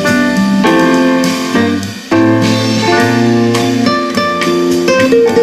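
Instrumental music with guitar and keyboard played back through a pair of Fostex FE108super 10 cm full-range speakers, their hardened cloth edges freshly softened. The music dips briefly about two seconds in, then carries on.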